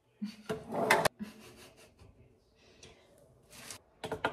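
Plastic scraping and knocking as the bowl of a small food processor is handled and twisted off its motor base. A loud scrape in the first second stops suddenly, followed by a click and fainter rubbing.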